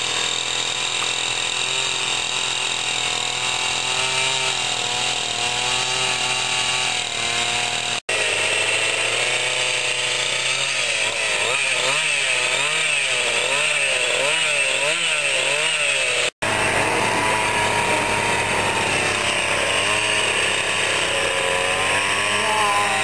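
Two-stroke carving chainsaw running while cutting into a wood sculpture. The engine pitch rises and falls as the bar bites and is drawn back, in a regular swing of about three cycles every two seconds through the middle. The sound breaks off for an instant twice.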